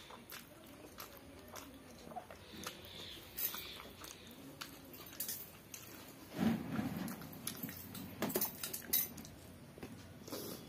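Close-up chewing and wet mouth clicks of a person eating rice and vegetable curry by hand, with fingers squishing and mixing rice on a metal plate. There is a louder stretch of this about six seconds in.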